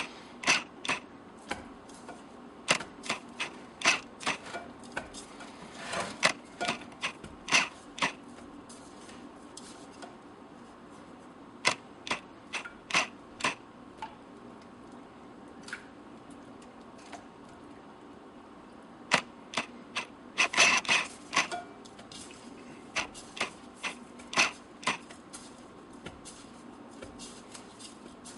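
Irregular sharp clicks and light taps of a utensil and food against ceramic bowls and a plate while chicken is dipped in egg and coated in breadcrumbs, coming in clusters with quiet spells between, the busiest flurry a little past the middle.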